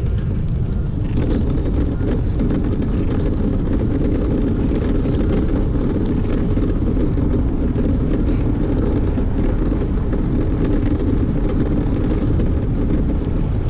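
Wind buffeting a GoPro's microphone while cycling: a steady low rumble with no break.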